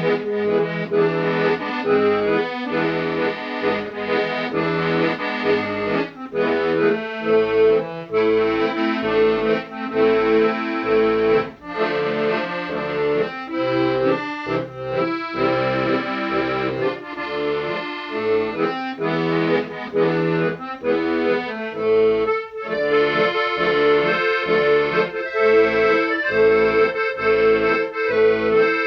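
Accordion music playing a tune over rhythmic chords.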